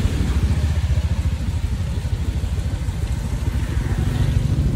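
Motorbike engine running steadily, heard from on the bike.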